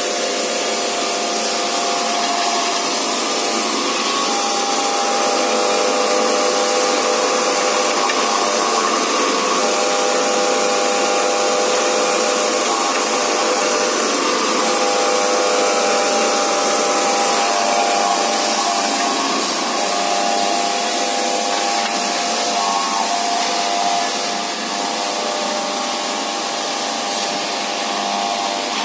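Woodworking machines on a wooden-handle production line running steadily: a constant noisy whir with several whining tones that come and go as the machines work.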